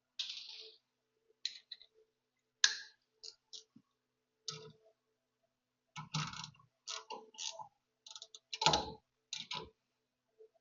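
Metal parts and hand tools clinking and knocking in short, irregular taps during upper control arm fitting, with two sharper knocks, one a few seconds in and a louder one near the end.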